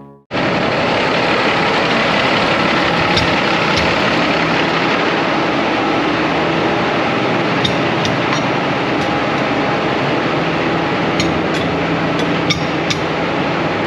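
Semi truck's diesel engine idling steadily while it warms up and builds air, with a few light sharp clicks over it in the second half.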